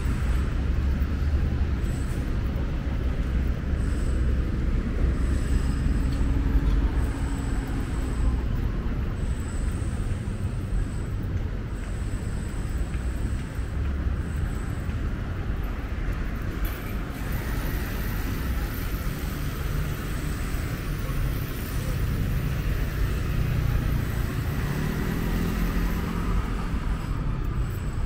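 Road traffic: vehicles running past with a steady low rumble. An engine's pitch rises and then falls near the end.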